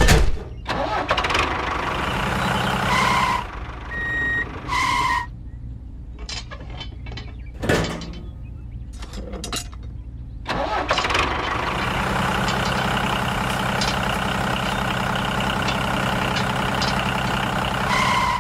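A miniature tractor's engine running for a few seconds, cutting out, then starting again and running steadily from about ten seconds in. Three short beeps come over it.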